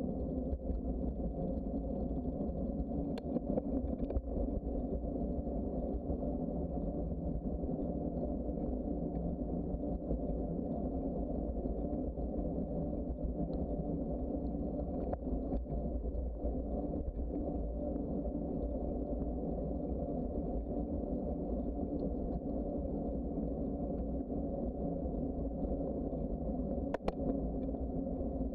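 Steady low rumble of wind on the microphone and tyres rolling on the trail from a moving bicycle, with a few faint clicks.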